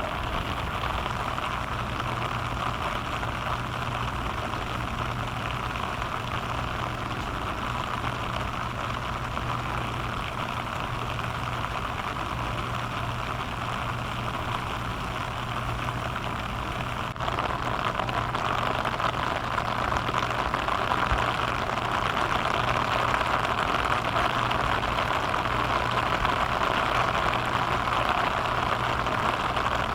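Steady rain falling and pattering on surfaces, with a constant low hum underneath; the rain gets slightly louder a little past halfway.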